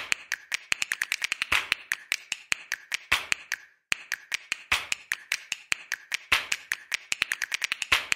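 Rhythmic percussive background track of quick taps and snaps, with rapid ticks and a louder hit about every one and a half seconds. It stops for a moment a little under four seconds in, then starts again.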